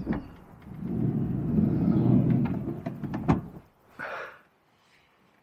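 Citroën Berlingo's sliding side door unlatched with a click, then rumbled along its track and stopped with a sharp clunk about three seconds in. A short, softer rustle follows a second later.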